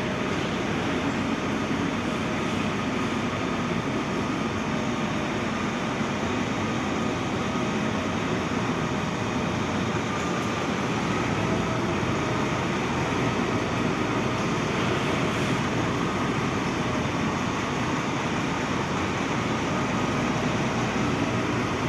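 Semi-truck engine running steadily, an even mechanical rumble with no change in pace.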